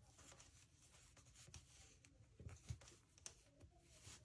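Near silence with faint scattered ticks and rustles of knitting needles and yarn as stitches are worked.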